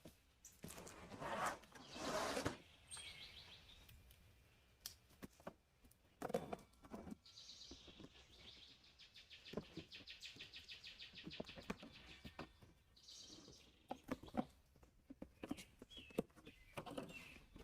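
A cardboard box being opened and handled: scattered knocks, scrapes and rustles of cardboard. About halfway through comes a rapid, evenly pulsed high rasp lasting about five seconds, and a shorter one near the start.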